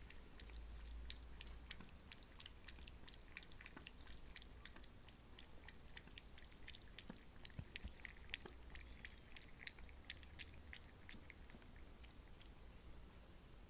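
A cat lapping water from a drinking glass: faint, quick wet clicks of the tongue, thickest in the second half.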